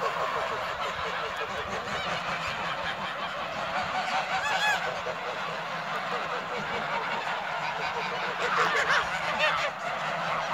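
Large flock of white domestic geese honking, many calls overlapping into a continuous din, with a louder single call standing out a little before halfway and another burst of louder calls near the end.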